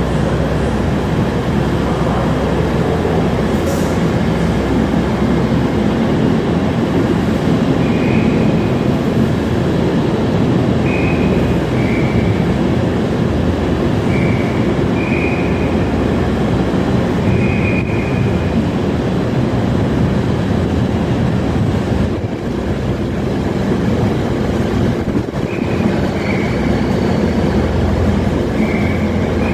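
Freight train of container wagons rolling through a station: a steady low rumble of wheels on rail, with short high wheel squeals several times in the latter part.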